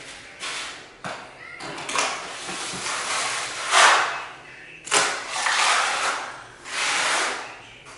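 A hand tool scraping across a bare concrete floor in a series of irregular rasping strokes, each about half a second to a second long, the loudest one about four seconds in.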